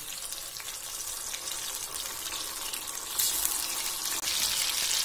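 Gram-flour gatte sizzling as they deep-fry in hot oil in a kadhai: a steady, high hiss that grows louder about three seconds in.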